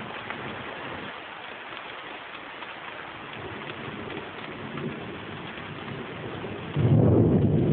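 Rain hissing steadily through a thunderstorm, with many small drop ticks. Near the end a low rumble of thunder comes in suddenly and becomes the loudest sound.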